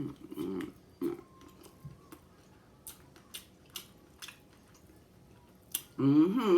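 Close-mic chewing and wet mouth clicks of someone eating a corned beef dip sub. Short voiced "mm" sounds come near the start, and a louder one comes near the end.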